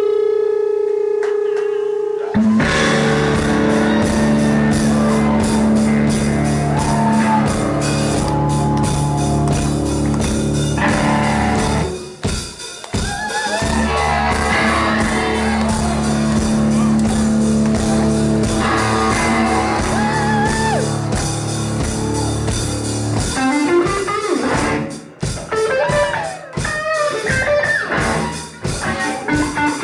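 A two-piece rock band playing loud with distorted electric guitar and drum kit. A held guitar tone opens and breaks into the full band about two seconds in. The music dips briefly around the middle and turns stop-start near the end.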